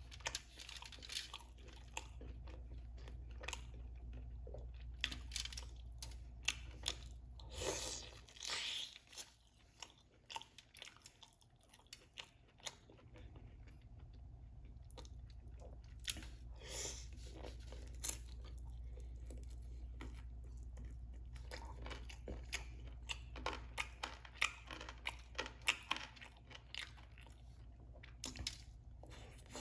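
Close-miked chewing and crunching of fried chicken wings and fries, with irregular sharp crackles and bites.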